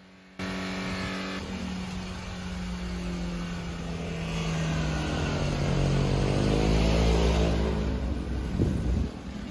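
A runaway diesel engine running flat out at a steady high pitch. From about halfway through, a box truck's diesel engine grows louder and its pitch shifts as it drives past close by, the loudest part of the clip.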